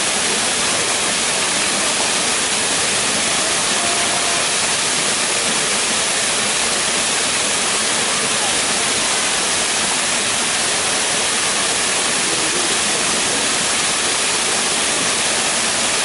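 Small waterfall: water pouring over rocks into a pool with a steady, unbroken rushing splash.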